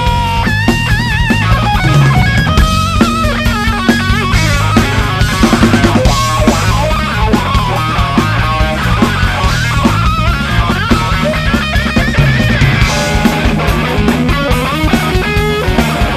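Live blues-rock trio playing an instrumental break: a lead electric guitar solo with bent notes and vibrato over electric bass and drum kit.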